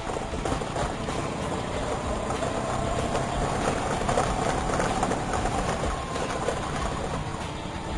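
Vespa scooter engine running, with a steady siren-like whistling tone from its siwingan riding over the engine noise and wavering slightly in pitch.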